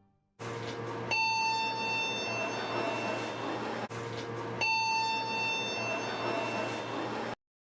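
Electronic buzzer tone in a lift, a steady beep held about a second, sounding twice, over a low steady hum. The sound cuts off abruptly near the end.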